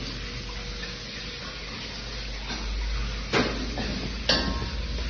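Food sizzling in a wok over a gas wok burner, as a metal ladle stirs and scrapes the pan, striking it sharply twice in the second half.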